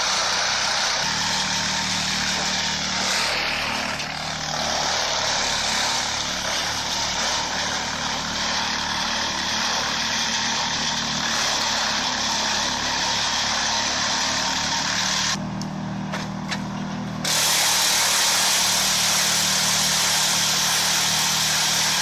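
Truck-mounted Flisbjørn wood chipper running: a steady engine drone under a broad grinding hiss of wood being chipped. The hiss drops away for about two seconds about three-quarters of the way through, then returns.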